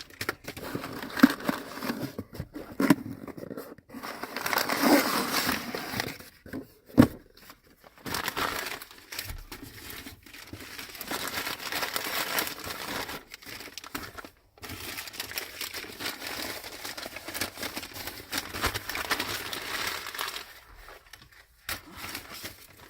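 Shipping packaging being handled and torn open: crinkling and tearing in irregular bouts with short pauses, and a few sharp knocks.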